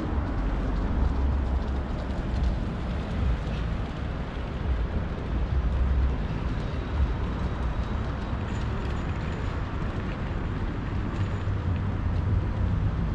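City street ambience at a wide intersection: a steady low rumble of traffic with a hiss of general city noise, and no single event standing out.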